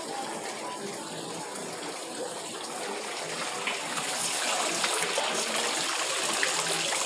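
Water splashing from an ornamental stone wall fountain into its basin, a steady rushing that grows louder about halfway through.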